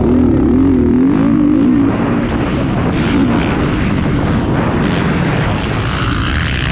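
Onboard motocross bike engine revving hard, its pitch rising and falling quickly with the throttle over the first two seconds, then rougher and less distinct.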